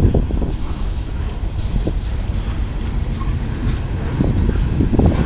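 Freight cars of a CSX mixed freight train, centerbeam lumber flatcars and refrigerated boxcars, rolling past close by. Their steel wheels make a steady low rumble, with a few sharp knocks at the start and near the end.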